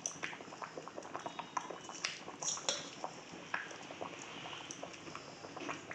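Fish-head curry bubbling in a pot at a simmer: a steady stream of small pops, with a few louder clicks between about two and three and a half seconds in.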